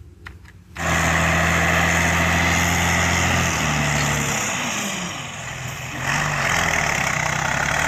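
Engine of a heavy off-road dump truck running steadily while the truck tips its raised bed to dump soil. The sound starts about a second in, and the engine note shifts a couple of times.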